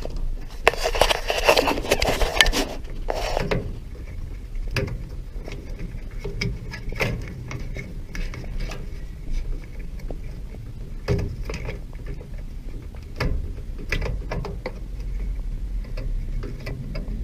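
Hands working wiring and a plastic hose inside a washing machine cabinet: a burst of rustling and scraping about a second in, then scattered light plastic clicks and knocks.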